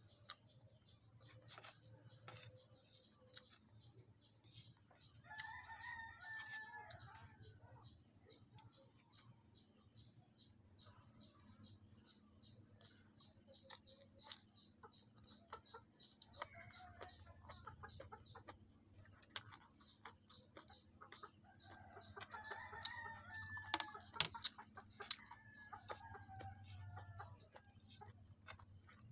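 Faint rooster crowing, once a few seconds in and again in the last third, each crow a drawn-out call lasting two to three seconds. Scattered sharp clicks of close-up chewing and eating run underneath.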